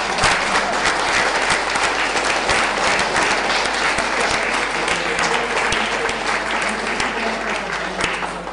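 An audience in a hall applauding steadily, many hands clapping, dying away near the end.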